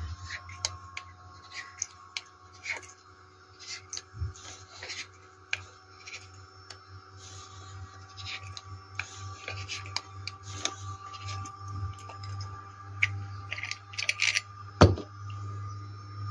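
Hand-turned valve seat cutter grinding inside a brass tap body: a run of short metal scrapes and clicks as the cutter shaves down the scored gasket seat, with one sharper click near the end.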